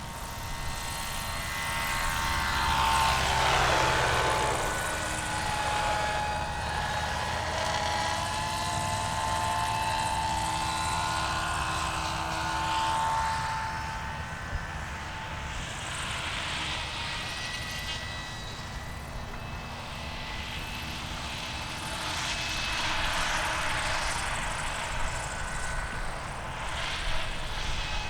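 Radio-controlled model aircraft flying, a steady motor whine that swells and fades as it passes, loudest about three to four seconds in and swelling again later.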